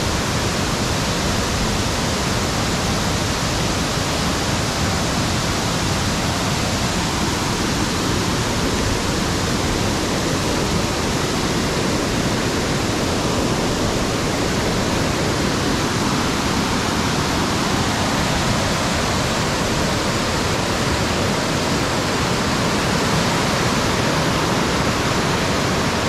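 Waterfall rushing: a loud, steady roar of falling water that does not let up.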